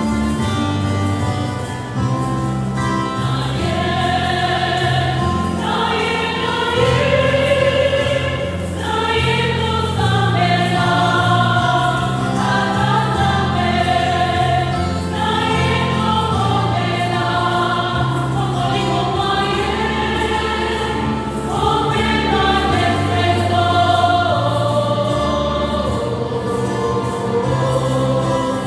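A choir singing a hymn in long held notes, with steady low notes from an instrument underneath.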